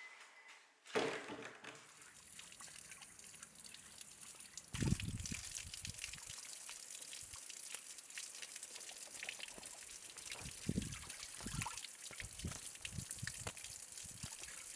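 Stream water trickling and babbling steadily, louder from about five seconds in, with a few dull low thuds.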